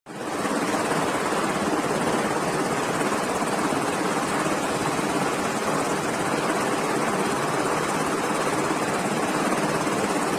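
Steady, loud running noise of a Navy helicopter turning its rotors on an aircraft carrier's flight deck.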